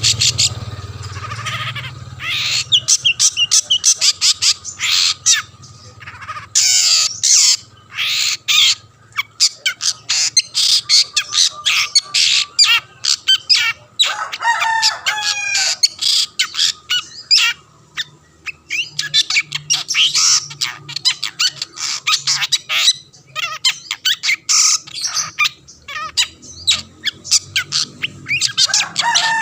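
Long-tailed shrike in full song: long runs of rapid, harsh chattering notes and short squawks, mixed with a few falling whistled phrases, pausing briefly now and then.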